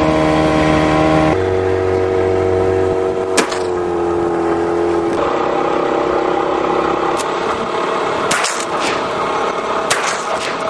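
A speedboat's motor running steadily, with shotgun shots over it: one about three seconds in, then a quick string of shots from about seven to ten seconds in.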